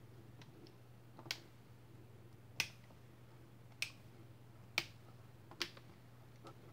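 Keys on an Acer TravelMate P453 laptop keyboard pressed one at a time: about five sharp single clicks roughly a second apart, with a few fainter taps in between.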